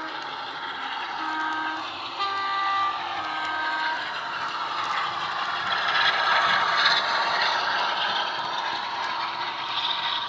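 Bachmann Class 46 model locomotive's DCC sound decoder, played through a small double iPhone-type speaker: a two-tone horn gives three short blasts, then the recorded Class 46 diesel engine sound builds and is loudest as the locomotive passes, easing as the coaches follow.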